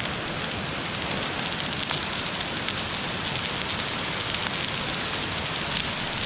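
Ribeye steak, butter and garlic sizzling in a hot cast iron skillet: a steady sizzle full of fine crackling pops.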